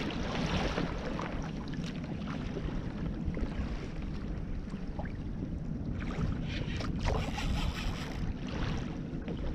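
Wind buffeting the microphone and water slapping against a kayak hull, with a few short rushes of hiss about six to nine seconds in.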